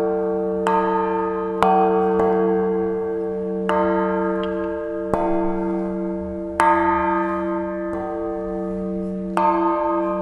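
La Piagnona, the old church bell of San Marco, struck by its clapper six times at uneven intervals. Each stroke rings out bright and fades over a steady deep hum that keeps sounding between the strokes.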